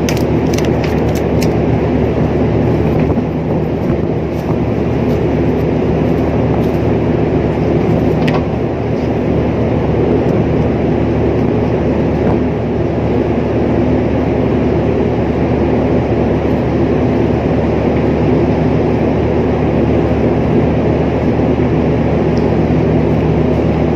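A large ship's machinery running with a steady, loud drone made of several low hum tones. There are a few light clicks in the first second or two.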